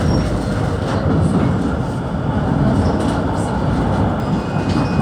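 Tram running along the track, heard from inside the car: a steady low noise of wheels on rails, with a few faint clicks.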